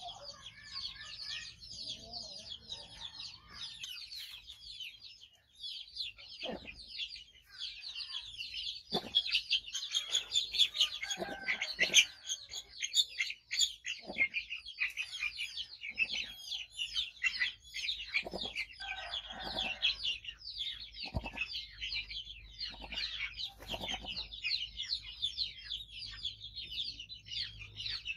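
Chickens clucking now and then over continuous, dense high-pitched chirping.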